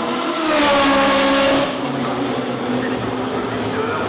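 Turbocharged race car engine passing close at speed, loudest for about a second before cutting off abruptly, over the steady running of other race engines.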